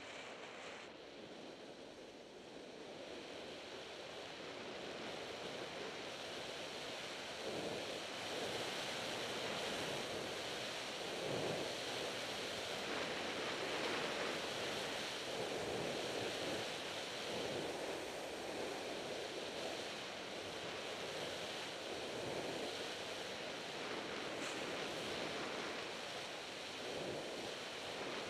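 Skis running down a groomed run, the edges scraping the snow in swells about every two seconds with each turn, mixed with wind rushing over the microphone. The noise builds over the first several seconds as speed picks up.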